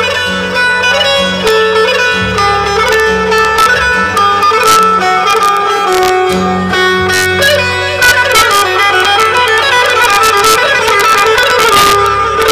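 Live Arabic wedding band music through loudspeakers: a keyboard plays a plucked-string-like melody over a steady bass, with drum hits growing busier about eight seconds in.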